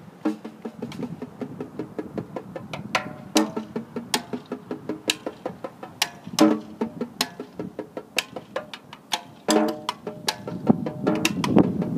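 Snare drum quartet played with sticks: crisp, interlocking strokes in a steady rhythm, with louder accented hits about every three seconds and a denser, busier run of strokes building near the end.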